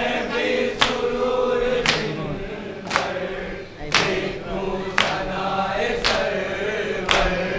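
Men's voices chanting a noha lament together in held, drawn-out tones, with a sharp slap of matam chest-beating about once a second.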